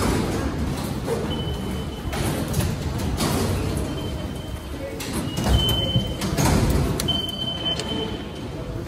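Ticket barriers beeping as passengers pass through: four short high beeps, the longest near the end, over clunks of the turnstile arms and footsteps.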